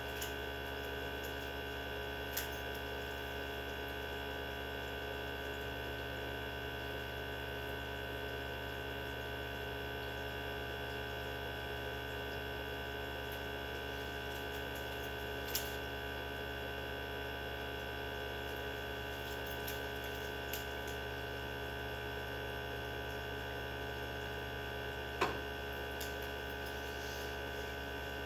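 Mini benchtop centrifuge running at constant speed mid-spin with tubes of blood: a steady motor hum with a steady high whine over it. A few brief faint clicks come and go, the clearest near the end.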